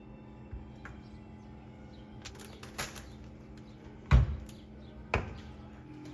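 A few sharp knocks and clatters of objects being handled, the loudest about four seconds in, over a low steady hum.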